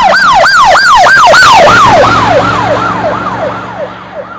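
Police siren on a fast yelp, its pitch sweeping up and down about three times a second. It is loud at first, then drops a little in pitch and fades away from about two seconds in, as the vehicle passes and moves off.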